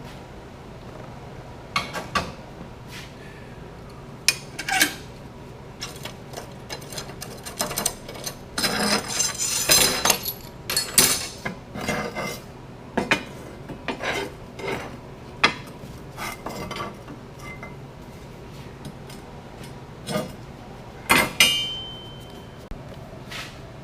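Steel parts and hand tools being handled and fitted: irregular metal clinks, knocks and rattles, busiest in a cluster near the middle, with one short metallic ring near the end.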